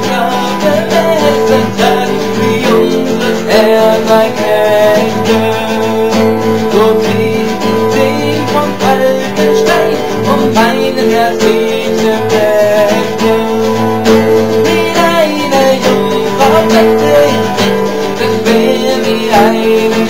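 Acoustic guitar strummed in steady chords.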